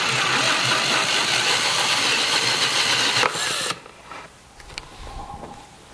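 Cordless drill running a 3/4-inch spade bit through the plastic wall of a 5-gallon bucket, a steady whirring grind that stops abruptly about three and a half seconds in. Faint handling sounds follow.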